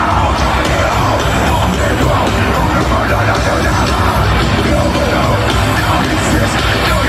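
Heavy metal band playing live, loud and dense without a break, heard from within the concert crowd.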